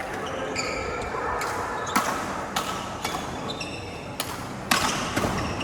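Badminton rackets striking a shuttlecock in a fast rally: a string of sharp hits about two a second, the loudest about two seconds in and near the end, with short squeaks of shoes on the court floor between them.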